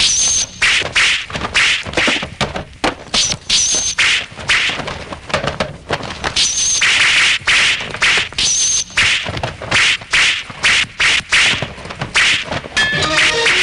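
Sword-fight sound effects: a fast, irregular run of blade clashes, whacks and swishes, some hits with a short high metallic ring. Music comes in near the end.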